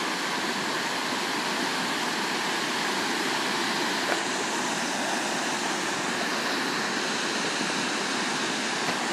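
A large waterfall pouring steadily, a constant rush of falling water with no change in level.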